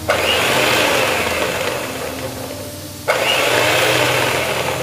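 Electric hand mixer whirring as its beaters churn a bowl of thinned yogurt. The whir cuts in sharply at the start and again about three seconds in, easing off a little after each time.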